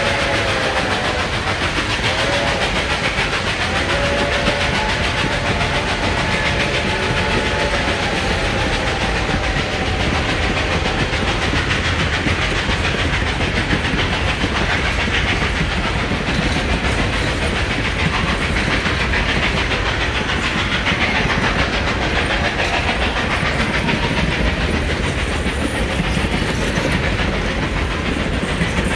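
Passenger coaches rolling past on the rails, with a steady rumble of wheels and clickety-clack over the rail joints. In the first several seconds, the chime whistle of the train's steam locomotive, Reading T-1 No. 2102, sounds further up the line in a few held blasts.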